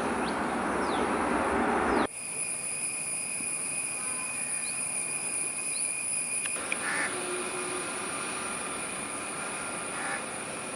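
Jet airliner engines heard from a distance: a broad rushing roar for about two seconds, then, after a sudden cut, a steady high-pitched whine over a softer rush. A few bird chirps come through early on.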